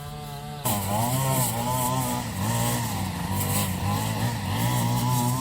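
Small gas engine of a multi-tool string trimmer running. It is quieter and steady at first, then gets abruptly louder under a second in, and its pitch wavers up and down as it works.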